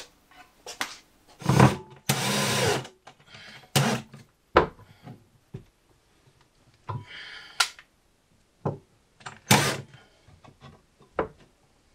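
Cordless drill driving screws into wood in several short bursts, the longest just under a second about two seconds in, with knocks and clatter between.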